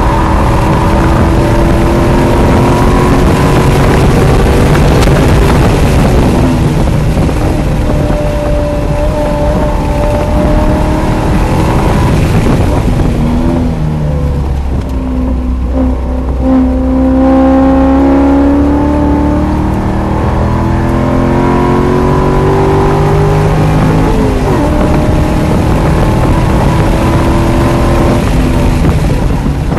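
C5 Corvette Z06's LS6 V8 running hard on track, heard from inside the car. It pulls at high revs, drops in pitch as the car slows for a corner about halfway through, then climbs again under full acceleration with a gear change, over steady wind and road noise.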